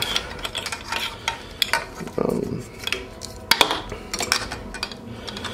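Scattered light clicks and clinks as seat wiring and its connectors are handled against the metal side bracket of a race seat.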